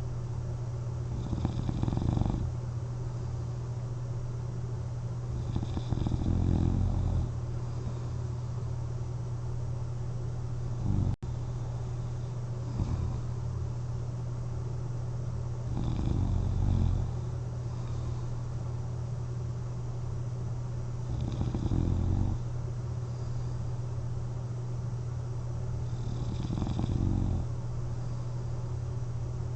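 A person snoring while asleep on their back wearing a CPAP mask, one snore about every five seconds, over a steady low hum.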